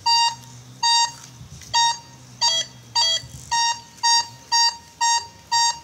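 Metal detector beeping: a string of short, high-pitched, identical tones as the search coil passes over a buried metal target. It is a very strong, shrill signal. The beeps come about once a second at first and quicker, about twice a second, toward the end.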